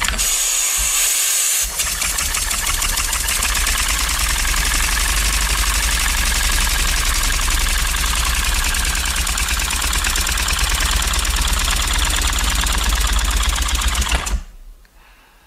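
3D-printed plastic oscillating-cylinder (wobbler) model engine running on compressed air from a tank. There is a rush of air hiss at first, then rapid, even exhaust puffs for about twelve seconds. The engine dies away and stops near the end.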